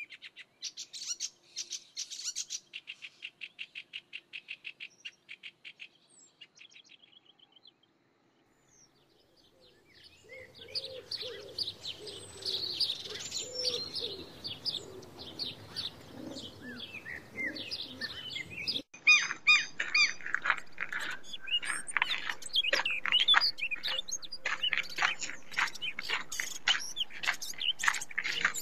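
Songbirds chirping and singing. A fast run of repeated high notes fades out, there is a brief lull, then many birds chirp over one another from about ten seconds in, changing abruptly to louder, busier chirping a little past the middle.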